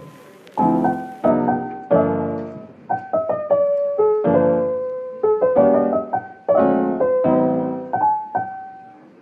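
Background piano music: struck chords and short melodic phrases, each note fading after it is played.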